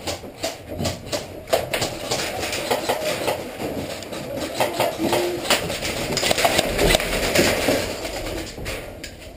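Irregular knocks, clicks and scuffling from people moving about with their airsoft gear, busiest in the middle.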